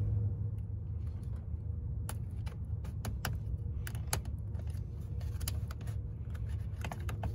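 Sharp plastic clicks and taps as fingers work a Toyota Tercel's underhood fuse box, pushing the main fuse block down out through the bottom of the box, over a steady low hum.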